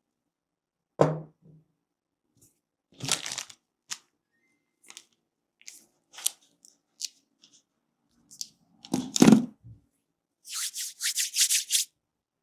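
Close-miked crackling and rubbing of hands working through hair on a scalp during a head massage, in irregular bursts, with two heavier thuds and a quick run of crackles near the end.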